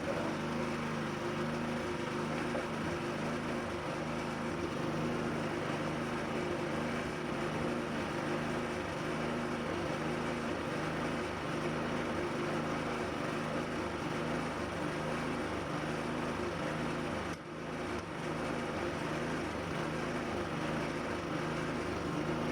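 An engine running steadily with an even pulsing hum, dipping briefly once about seventeen seconds in.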